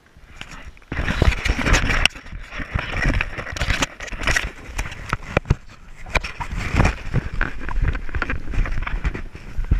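Handling noise of an action camera being gripped and moved about right at its microphone, with a rough rumble and many knocks and scrapes. It starts about a second in.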